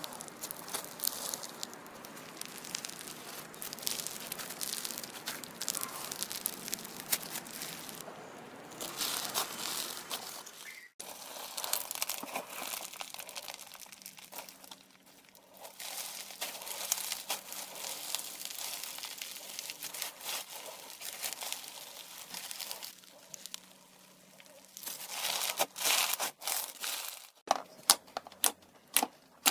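Crunchy bead-filled slime being stretched and squeezed by hand, giving dense crackling and crinkling. Near the end there are several separate sharp clicking pops.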